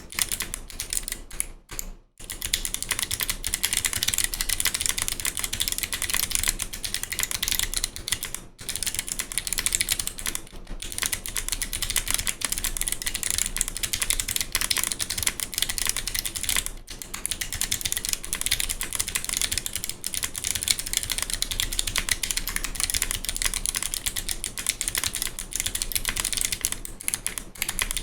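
Continuous fast typing on a mechanical keyboard with Kailh Box Navy clicky switches under GMK keycaps: a dense stream of heavy, crisp clicks, broken by a few brief pauses.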